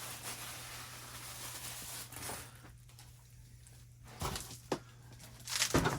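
Packaging rustling as a new bench grinder is unpacked, then a few short handling knocks.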